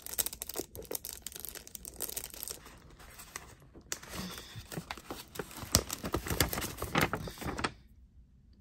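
Paper gift bag rustling and crinkling as a hand moves it and reaches inside, in irregular bursts with the sharpest crackles about two thirds of the way in.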